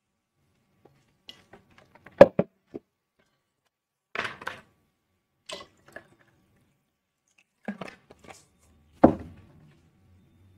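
Handling noises on a desk: a few sharp knocks about two seconds in, the first the loudest, then short rustles and a heavier thud near the end, as a glass of water and other objects are picked up and set down.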